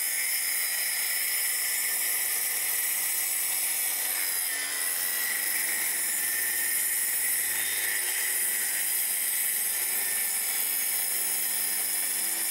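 Corded Makita trim saw (a small circular saw) running steadily as it cuts through deck boards along a curved line. Its motor pitch wavers slightly with the load and sags briefly about four and a half seconds in.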